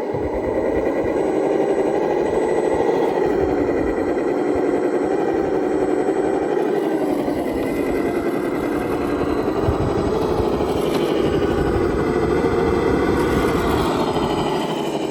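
Radio-controlled rock crawler's electric motor and geared drivetrain whining steadily as it drives, the pitch rising and falling with the throttle and dropping near the end.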